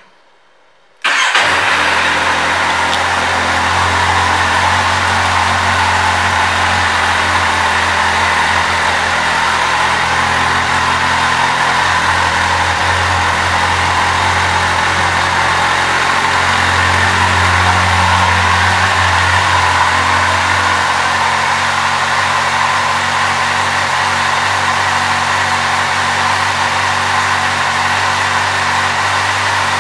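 Kawasaki Z800's inline-four engine starting up about a second in, then idling steadily.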